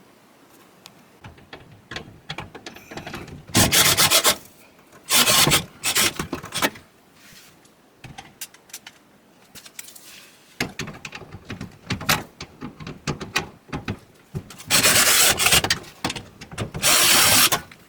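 Unscrewing of the dryer's blower housing screws: several short, loud rasping bursts with clicks and handling knocks between them.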